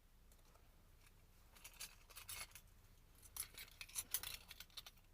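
Small hard items of survival gear being handled and set down: a scatter of light clicks and clinks that starts about one and a half seconds in.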